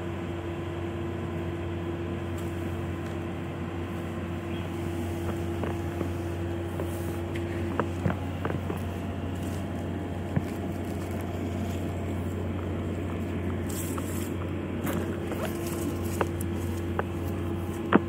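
Steady low mechanical hum with a faint steady tone above it, like a fan or appliance running. A few light clicks come about eight seconds in, around ten seconds, and at the very end.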